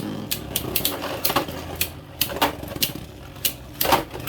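Two Beyblade spinning tops, Judgement Joker and Volcano Helios, spinning and clashing in a plastic Takara Tomy stadium: irregular sharp clicks of collision over a steady spinning hum.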